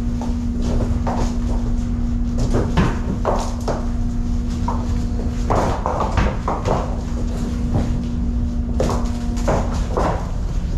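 Frozen tuna knocking and clattering against each other in irregular hard knocks as they are shifted and tossed in a refrigerated fish hold, over a steady low machinery drone with a hum that drops out briefly midway.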